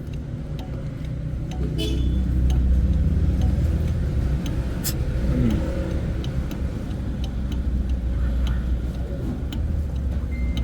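A motor vehicle engine running steadily at idle, a low hum that grows louder about two seconds in, with scattered light clicks over it.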